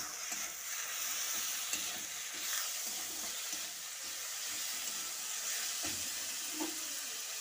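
Onion, tomato and spice masala sizzling in hot oil in a steel kadai, stirred with a metal spatula that scrapes across the pan in repeated strokes.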